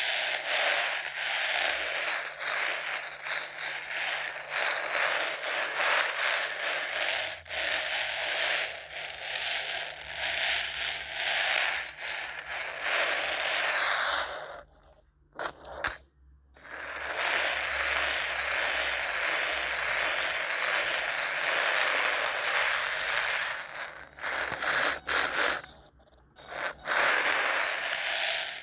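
Turbo Racing C64 1:76 micro RC drift car driving and drifting on a laminate floor: its tiny electric motor and gears whir and rattle while its hard drift tyres scrape and slide. The sound cuts out briefly about halfway and again near the end, when the car stops.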